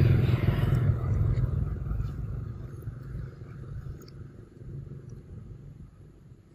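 A motor vehicle's engine passing close by and fading away over several seconds, leaving only a faint low rumble near the end.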